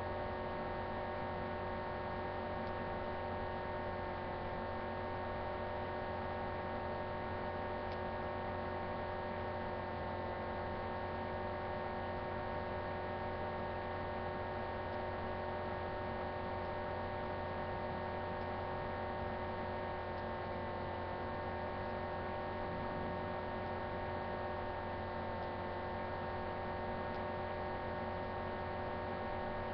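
A steady electrical hum made of several fixed pitches, low and mid, over a faint hiss, unchanging with no other events.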